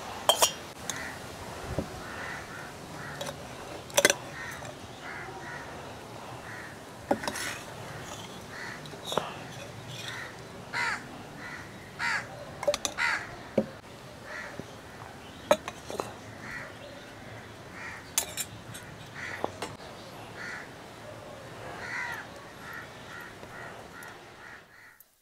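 Crows cawing again and again, over the scattered clinks and taps of a steel serving vessel against the food on a banana leaf.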